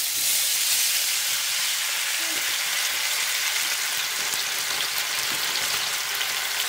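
Thawed frozen fried rice with chicken and vegetables hitting hot oil in a non-stick wok, sizzling and frying in a steady hiss.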